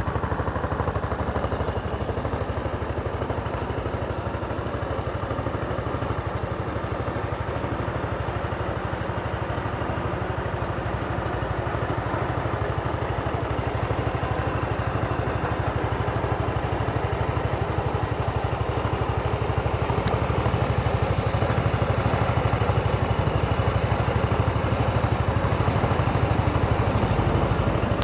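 Honda SES 125 Dylan scooter's 125 cc four-stroke single-cylinder engine idling steadily.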